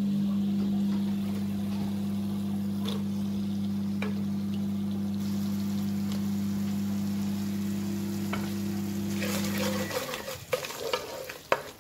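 Soaked dried fruit frying in spiced oil in an aluminium pot, being stirred with a spatula: sizzling with light scrapes and clicks, which grows louder near the end. Under it runs a steady low electrical hum that cuts off suddenly about ten seconds in.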